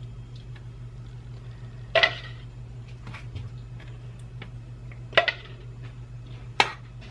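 Metal spoon clinking against a bowl while scooping out garlic sauce: three sharp clinks about two, five and six and a half seconds in, with fainter ticks between, over a steady low hum.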